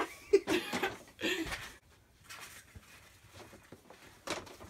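Girls laughing in short bursts for about a second and a half, with one brief sound near the end.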